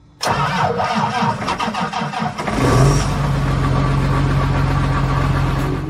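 Farm tractor's diesel engine being cranked by its starter, catching about two and a half seconds in and settling into a steady idle.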